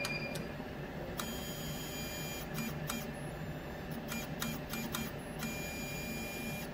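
Roland SP-540V wide-format inkjet printer running its internal motors while it processes the head-adjust bias routine: a steady mechanical hum with a regular low pulse, thin high whines that start and stop, and scattered clicks. A short beep sounds right at the start.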